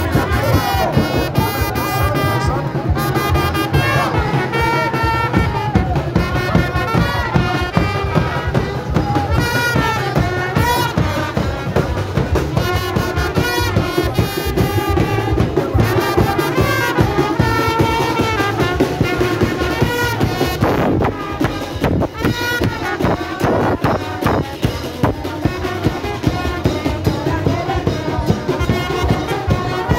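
Brass band of trumpets, trombones and saxophones with a drum, playing a continuous tune live.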